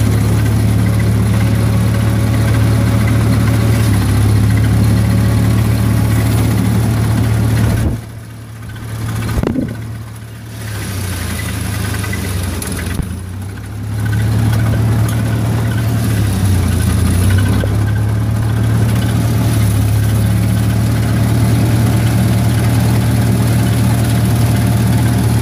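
International Cub Lo-Boy 154's four-cylinder gasoline engine idling steadily, dipping in loudness for a few seconds between about eight and fourteen seconds in.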